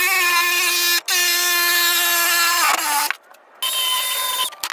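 Angle grinder cutting sheet steel: a loud, steady, high-pitched whine that dips once briefly about a second in and winds down near three seconds. After a short gap it cuts again for about a second at a higher pitch.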